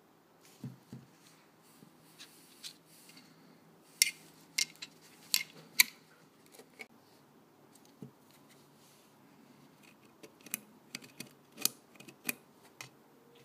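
Sharp plastic-and-metal clicks and snaps from a black handgun and its magazine being handled, with a round pressed into the magazine. The clicks come singly and in quick runs, loudest in a cluster about four to six seconds in and another near the end.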